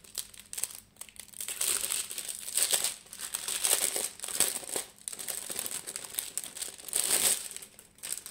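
Small clear plastic bags of diamond-painting rhinestones crinkling as they are handled, in several irregular bouts, the loudest about seven seconds in.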